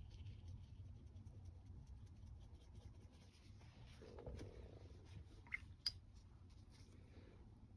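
Near silence with a low steady hum and faint scratching strokes of a brush on watercolour paper. Two quick sharp clicks in the second half.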